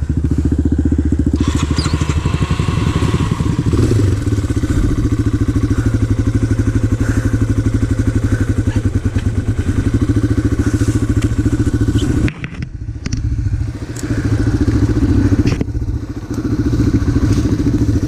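Off-road motorcycle engine running at a steady, low pace, its firing pulses even throughout. The sound dips briefly about twelve seconds in and again near the end.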